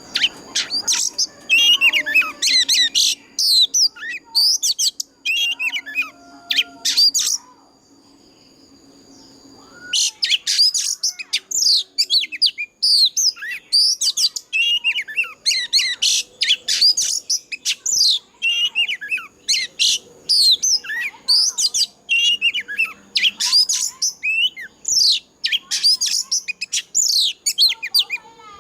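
Oriental magpie-robin singing a rapid, varied song of high whistled and sliding notes. The song breaks off for about two and a half seconds a quarter of the way through, then resumes.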